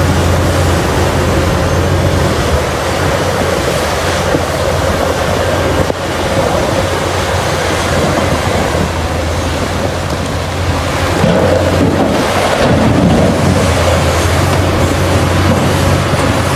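Caterpillar 6015B mining excavator working: its diesel engine runs loud and steady with a low hum under the noise of rock and dirt being dug and dumped into a dump truck bed. The sound grows fuller about eleven seconds in.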